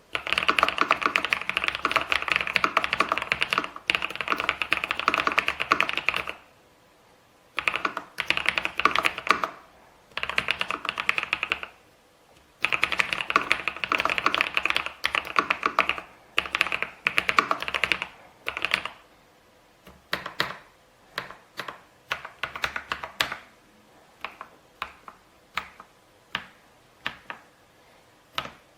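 Typing on a Kisnt gasket-mounted mechanical keyboard with linear switches: fast runs of keystrokes lasting a few seconds each, with short pauses between them. In the last third this changes to single keys pressed one at a time, about one a second.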